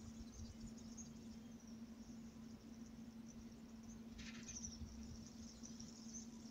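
Faint high-pitched insect chirping, like a cricket chorus, over a steady low hum.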